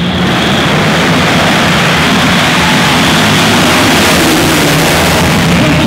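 A full field of motocross bikes launching off the start gate together at full throttle: many engines revving and accelerating at once as one dense, steady blare.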